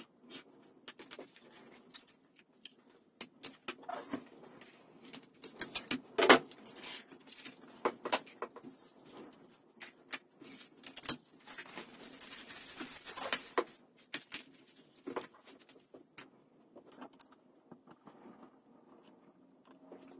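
Leather and hand tools being handled on a workbench: scattered clicks, taps and clacks, with one sharp knock about six seconds in and a couple of seconds of rasping rubbing around twelve seconds in.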